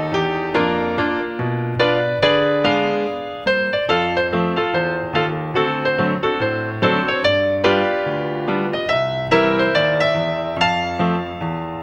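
Background keyboard music: a steady run of struck notes, about two a second, each fading after it is played.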